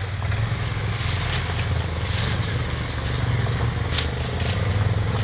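Four-wheeler (ATV) engine running steadily with a fast low pulse, with a few short sharp noises over it, one of them about four seconds in.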